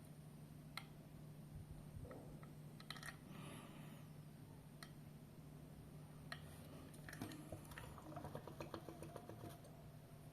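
Faint scattered clicks and light taps over a low steady hum, with a quick run of small ticks about eight seconds in.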